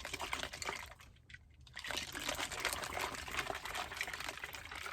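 Bubble tea with boba pearls sloshing in its cup as it is shaken, in two spells with a brief pause about a second in.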